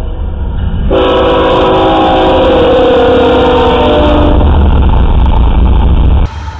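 Freight train led by a Union Pacific GE ET44AH locomotive passing close by at speed, its multi-chime air horn sounding a chord for about three seconds over the heavy rumble of the locomotives and wheels. The horn chord sags slightly in pitch as the locomotive goes by. The rumble cuts off sharply near the end.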